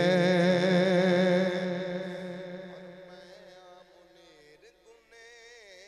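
A man singing a naat unaccompanied, holding a long wavering note at the end of the refrain line that fades away over about two seconds; only faint wavering voice sounds remain near the end.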